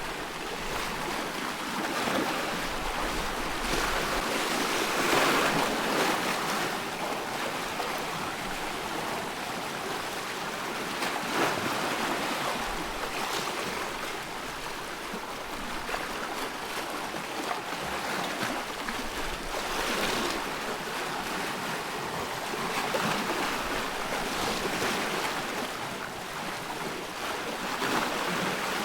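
Wind-driven waves on a loch washing and splashing in irregular swells, with wind blowing through.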